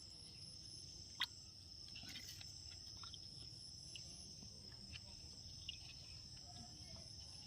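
Faint, steady, high-pitched insect chirring, with a single short click about a second in.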